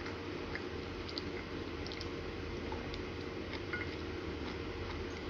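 Faint scattered clicks and small wet sounds of a toddler eating, a spoon tapping in a bowl and in the mouth, over a steady low room hum.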